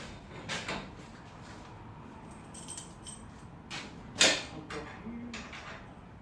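Metal hardware being handled: scattered clinks and a jingling rattle, with one sharp knock about four seconds in.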